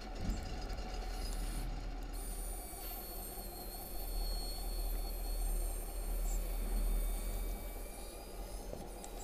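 Steady high electric whine of a 1:10 RC crawler's winch motor pulling the overturned truck back onto its wheels, over a low steady hum; the upper tones shift about three seconds in.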